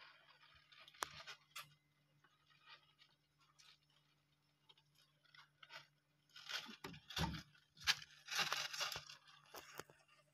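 Dry wood-shaving bedding rustling and crunching in short scattered crackles, with a louder run of them in the second half, over a faint steady low hum.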